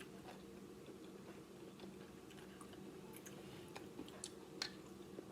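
A person chewing food with the mouth close to the microphone: faint chewing with a few small mouth clicks, sharper ones in the second half, over a steady low hum.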